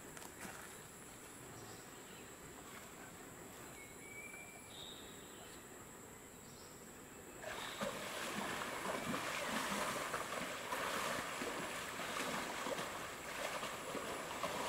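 Greater one-horned rhinoceros wading through shallow muddy water, its feet splashing, starting suddenly about halfway through. Before that it is fairly quiet, with a few faint bird chirps and a steady high whine.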